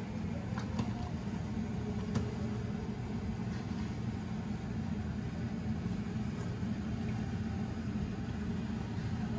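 Steady low rumble from the gas stove where a big stainless pot of soup is heating, with a few light clicks of a ladle against the pot as it is stirred, the sharpest about two seconds in.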